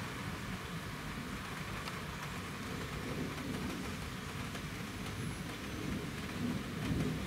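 Steady rain during a thunderstorm, with a low rumble of thunder underneath that swells slightly near the end.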